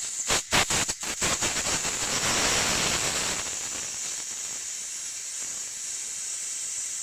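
Pressurised medical gas hissing out of a Draeger wall gas outlet as its hex screws are loosened, after a few quick clicks in the first second; the hiss swells about two seconds in, then settles to a steady rush.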